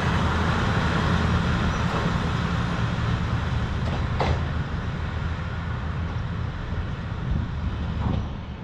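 Kominato Railway diesel railcar under way: a steady low engine drone and running noise with a few sharp clicks, slowly growing quieter.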